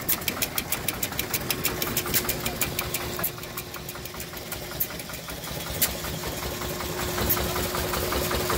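Antique stationary gas engines running, with a rapid, even clicking that thins out after about three seconds and a steady hum underneath.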